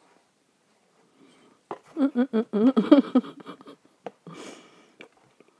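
A woman's voice murmuring indistinctly for about a second and a half, followed by a short breathy sound.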